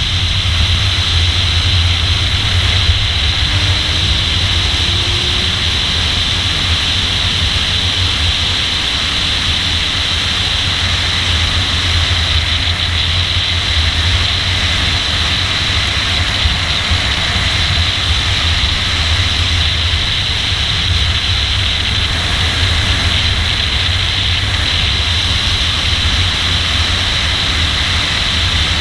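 Car driving at speed on a race track, heard through a camera mounted on its hood: a steady low rumble of wind and road noise under a constant hiss, with no clear rise or fall in engine pitch.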